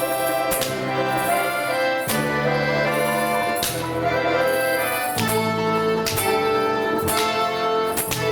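Small instrumental ensemble playing a medley of Russian folk tunes: sustained chords over a bass line that changes every second or so.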